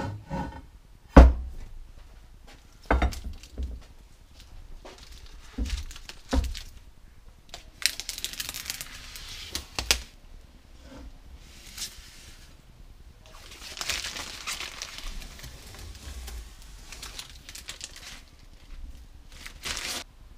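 A heavy aluminium tooling plate knocks and thuds on a workbench a few times, the loudest about a second in. Then its blue protective plastic film is peeled off the surface in long tearing pulls.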